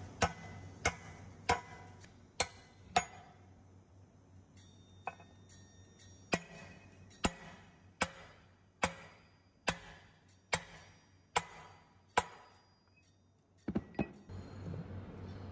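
Copper-headed hammer striking again and again to drive a bearing into its bore in the cast housing of a parallel-shaft helical gear reducer, partly through a steel bearing driver. Sharp ringing metallic blows about one every 0.8 s, with a pause of a couple of seconds after the first five and a quick double blow near the end as the bearing seats.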